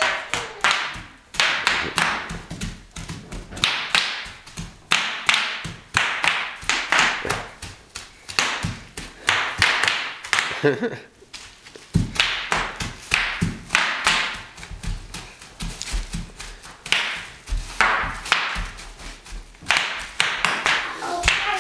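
Bubble wrap popping: many sharp, irregular pops in quick succession, with dull thuds underneath in the second half.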